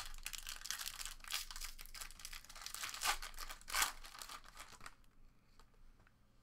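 Foil wrapper of a Panini Select basketball card pack being torn open and crinkled by hand, with the loudest tear just before four seconds in. It goes quiet for the last second or so.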